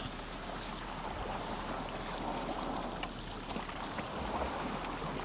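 Steady hiss of wind and water at the edge of a flooded plain, with a few faint clicks.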